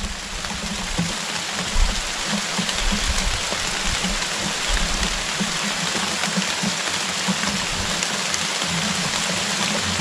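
Steady, even hiss of water, like rain on foliage, with a soft low thump about two seconds in.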